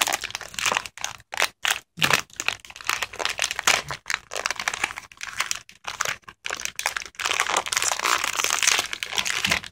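Plastic wrapper of a DIY candy kit crinkling and rustling in irregular bursts as it is handled and cut open with small scissors.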